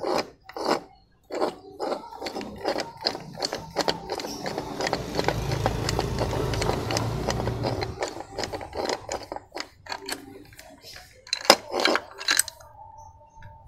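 Metal clinking and knocking as a Yamaha Mio Z crankshaft is fitted into its aluminium crankcase half, with a few sharper knocks near the end and a steady rushing noise for a few seconds in the middle.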